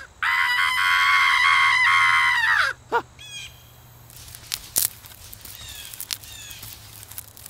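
A high-pitched, harsh cartoon-style scream held for about two and a half seconds, breaking off with a short squeal. It is followed by scattered light clicks and faint short chirps.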